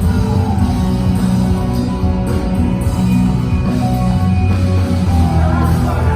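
Rock band music with guitars and a heavy low end, held chords ringing through, and a voice joining in near the end.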